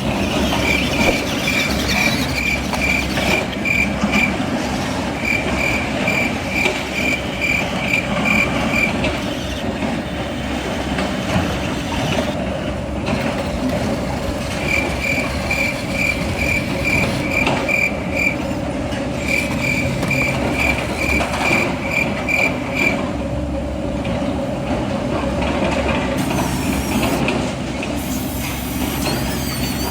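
Steady noise of RC construction models at work, with runs of a high-pitched reversing beeper sounding about three times a second for three or four seconds at a time, four times over.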